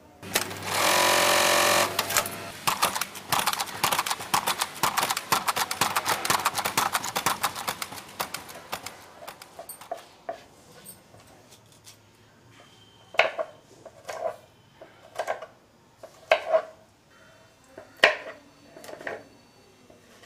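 Industrial sewing machine running flat out for about two seconds, then stitching in a fast patter that fades away over the next several seconds. Later a kitchen knife chops on a wooden board: a series of single cuts about a second apart.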